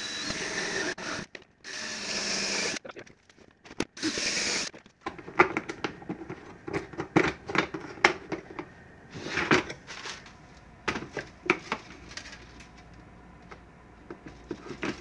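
Cordless drill with a step drill bit cutting through the wall of a clear plastic storage container, in three short runs of about a second each in the first five seconds. After that, scattered clicks and knocks of plastic parts being handled as a filament feeder fitting is put on the container.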